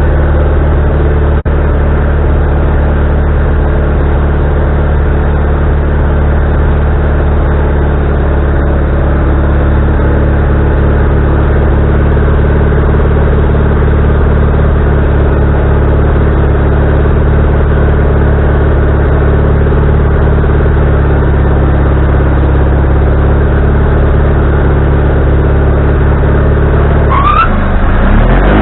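Wood-Mizer LT40HD portable band sawmill running, its engine a loud, steady drone. Near the end the sound changes, with a brief rising whine as the running speed shifts.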